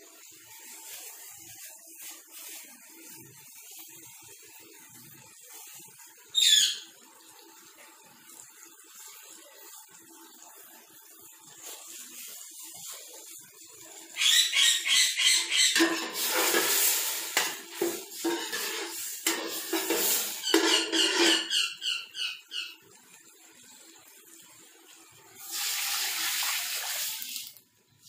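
Water poured into a steel pot of simmering moong dal khichuri. Soft simmering gives way about halfway through to loud pouring and splashing that comes in broken bursts for several seconds, with a shorter pour near the end. A single brief high squeak sounds about six seconds in.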